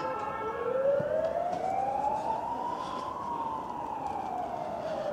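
Emergency-vehicle siren wailing: its pitch climbs slowly for about three seconds, then slowly falls.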